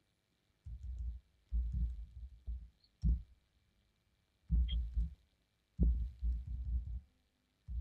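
Low, muffled thuds in short clusters, with a few faint computer-keyboard clicks as commands are typed.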